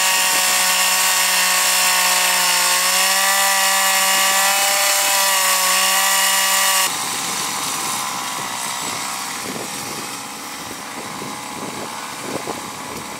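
Small petrol engine of a wheeled earth auger running fast, its pitch sagging slightly for a few seconds under load as the auger bores into the ground. About seven seconds in, the sound drops abruptly to a quieter, rougher running.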